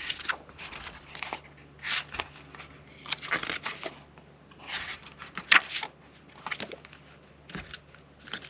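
Glossy booklet pages being turned and handled: a run of short paper rustles and flicks, with a few light taps.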